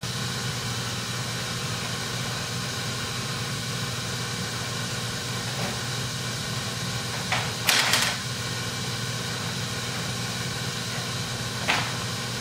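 Short plastic clacks of a large toy low-loader truck's trailer ramps being handled: a quick cluster about two-thirds through and one more near the end. A steady mechanical hum runs underneath.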